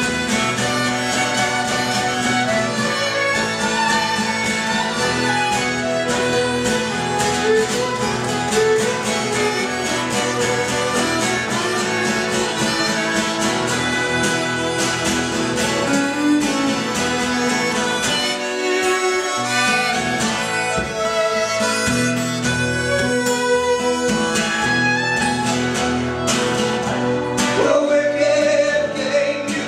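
Live acoustic instrumental break: a strummed acoustic guitar under a rack-held harmonica playing the melody, with a violin joining in.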